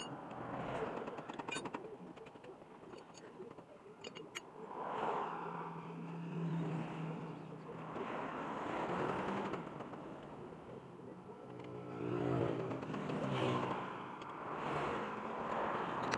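Road vehicles passing by one after another, each swelling and fading over a second or two, with a few light metal clinks in the first few seconds.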